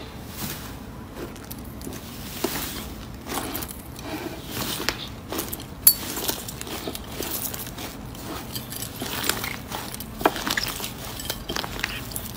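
Hands pressing, squeezing and kneading pink slime studded with small plastic shell-shaped charms, giving a steady run of irregular crackles and pops, with one sharp pop a little before the middle.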